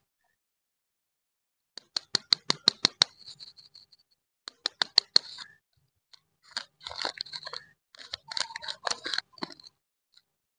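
Chilli Imli lollipop wrapper being peeled and torn open by hand, starting about two seconds in. It gives a quick run of sharp crackles at about six a second, then crinkling in several bursts with short pauses.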